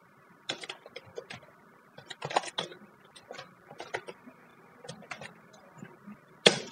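Computer keyboard being typed on: light, irregular keystroke clicks in short runs, with the loudest keystrokes near the end.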